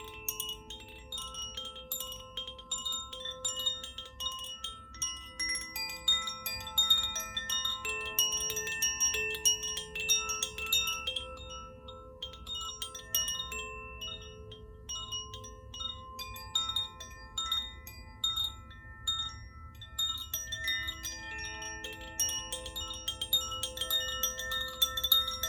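Koshi chime, a handmade bamboo chime with tuned metal rods, being played: its clapper strikes the rods in a flurry of overlapping ringing tones. The strikes thin out around the middle and grow dense again near the end.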